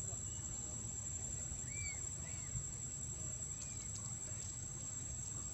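Outdoor ambience: a steady high insect drone over a low rumble, with a few short, high, arched chirps about two seconds in.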